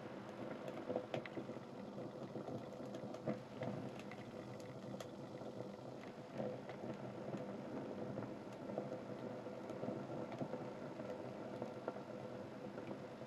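Open flames burning a pile of sneakers, mostly steady fire noise with scattered small crackles and pops from the burning material.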